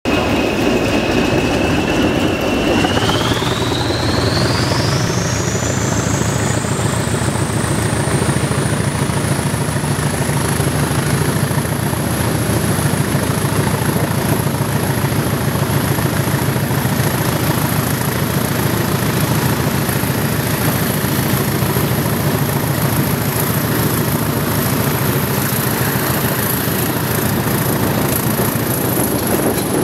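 English Electric Class 20 diesel locomotives thrashing out at full power: a deep, steady engine rumble. Over it, a turbocharger whistle climbs steeply in pitch from about three seconds in, then holds high.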